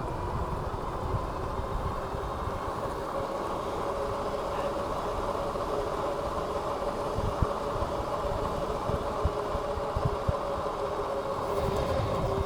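Dual-motor Philodo H8 e-bike's electric hub motors whining steadily under way, with wind buffeting the microphone in low gusty rumbles.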